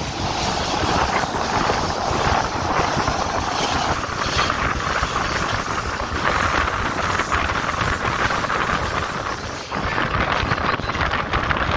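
Running noise of a moving train, a steady rush and rumble, with wind buffeting the microphone.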